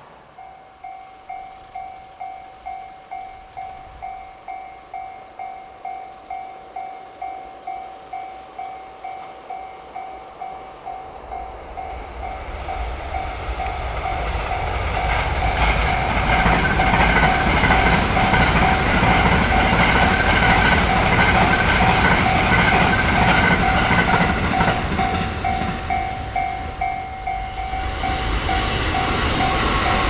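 Railway level-crossing warning bell dinging about twice a second. From about twelve seconds in, a JR West electric limited express train comes up and passes at speed. The rushing rail noise grows loud and drowns the bell, which stops near the end while the train keeps running by.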